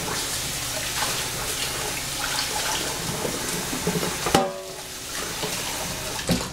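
Kitchen faucet running into a stainless-steel sink, a steady hiss of water. About four seconds in it cuts off with a knock and a brief ringing tone, leaving a quieter hiss and a click near the end.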